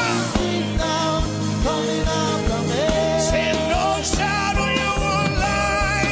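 Gospel worship music with a steady drum beat and a melody line gliding between long held notes.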